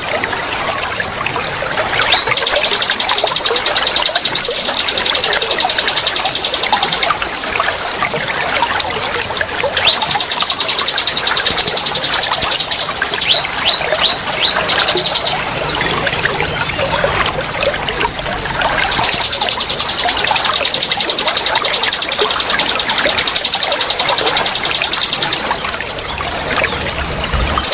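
Bird-therapy recording: trickling water under long, fast buzzing trills that come and go, each lasting several seconds, with a quick run of four short chirps near the middle.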